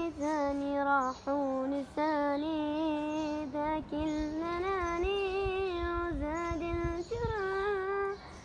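A young male voice singing an Arabic song unaccompanied, in long held phrases with wavering, ornamented turns, broken by short pauses for breath.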